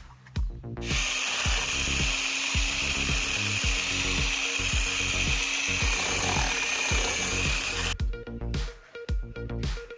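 Electric power tool running steadily with a high-pitched whine and hiss, starting about a second in and cutting off suddenly near the end. Background music with a steady beat plays under it.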